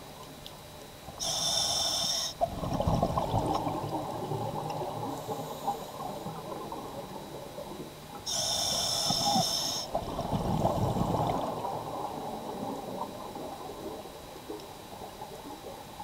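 Scuba diver breathing through a regulator underwater: twice a short hiss of inhaled air, each followed by a few seconds of bubbling exhalation.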